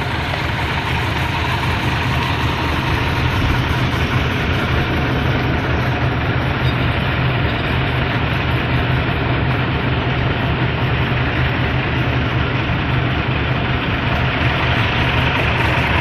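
Heavy diesel engine of a crane recovery truck running steadily with a low, even hum.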